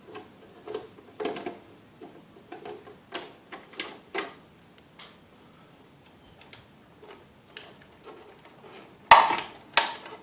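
Scattered light clicks and knocks of hands working on a Chamberlain Whisper Drive garage door opener, disconnecting its battery backup and working on its housing. Two sharp clacks, the loudest sounds, come about nine seconds in, less than a second apart.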